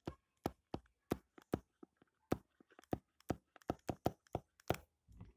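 A stylus tapping and clicking against a tablet's screen during handwriting: faint, sharp, irregular clicks, about four or five a second.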